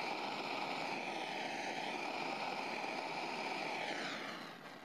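Sievert propane torch flame, a steady rushing hiss, heating a steam-pipe joint for silver soldering. It dies away near the end as the flame is taken off the joint.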